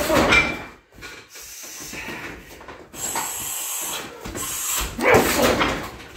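A shin kick thuds into a heavy punching bag at the start with a loud grunt from the fighter; about five seconds in comes a second loud grunt.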